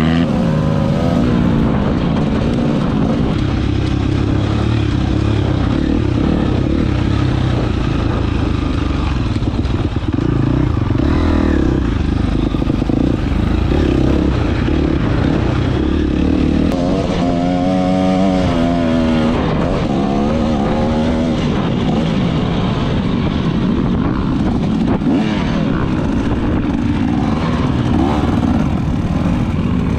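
Dirt bike engine being ridden hard, its pitch rising and falling with throttle and gear changes.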